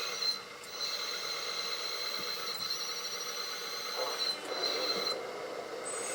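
Hydraulic pump of a 1/14-scale RC hydraulic bulldozer whining as the blade is worked, the high whine stopping and restarting several times before cutting off about five seconds in.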